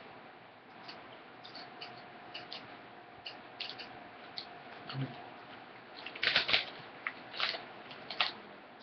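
Potato chips being chewed, heard as scattered small crisp crunches, then a chip bag crinkling loudly in several bursts from about six seconds in as a hand reaches into it.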